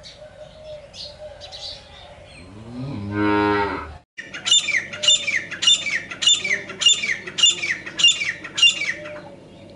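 A cow moos once, rising, about three seconds in. After a sudden cut, a francolin calls eight times in a steady rhythm, about two loud, sharp notes a second, each falling in pitch.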